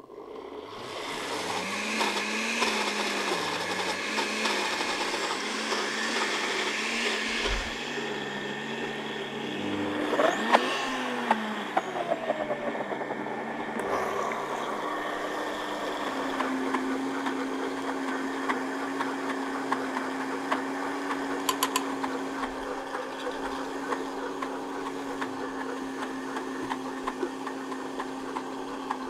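Several countertop blenders running at once, grinding roasted peanuts into peanut butter. The motor pitch shifts briefly about ten seconds in, then settles into a steadier tone.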